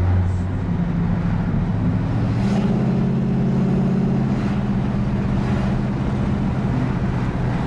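1968 Ford Galaxie driving along a city street, heard from inside the cabin: a steady engine hum with road and wind noise. The engine note steps up a little about two and a half seconds in.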